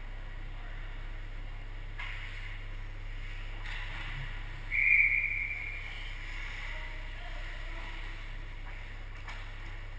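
An ice hockey referee's whistle blown once, about five seconds in, echoing briefly in the rink. Behind it are a steady low hum and a few faint knocks of sticks and puck on the ice.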